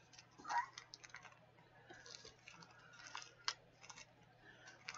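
Faint scattered clicks and light rustling of small jewelry-making pins and findings being handled on a desk, with a sharper click about three and a half seconds in.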